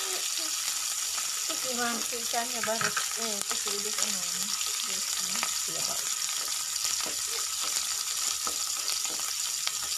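A whole fish sizzling as it fries in a little oil in a non-stick pan, a steady hiss dotted with small crackles and pops of spattering oil.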